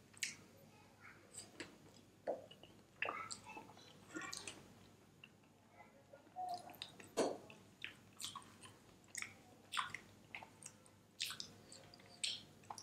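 Close-miked chewing of a mouthful of chow mein noodles: irregular soft, wet mouth clicks and smacks, a few each second.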